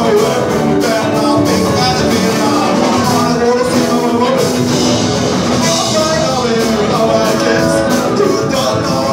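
A live rock and roll band playing loudly: a man singing over an upright double bass, guitar and drums.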